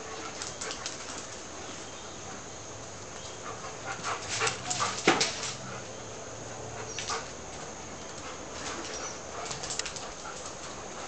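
Two Alaskan Malamutes play-fighting: scattered short dog vocalizations, the loudest about halfway through.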